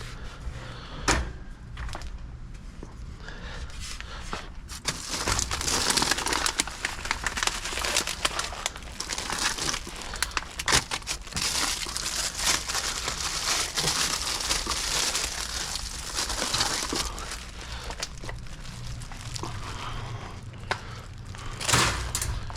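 Plastic packaging crinkling and rustling as it is handled, busiest through the middle stretch, with a couple of sharp knocks near the start and the end.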